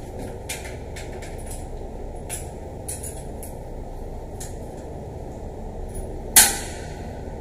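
Small clicks and clinks of a hand tool and valve parts being fitted to a shower valve's wall fitting, with one sharper, louder clack about six seconds in, over a steady low background noise.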